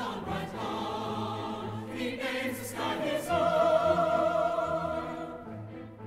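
Choir singing, ending on a long held chord from about three seconds in that fades away near the end.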